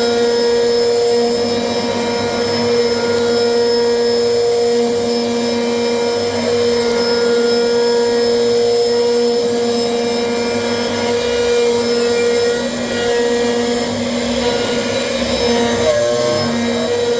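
CNC machine running: a steady, unchanging whine at one pitch over a motor hum.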